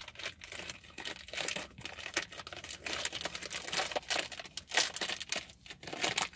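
Plastic snack-bar wrapper crinkling and tearing as it is pulled open by hand, in a run of irregular crackles.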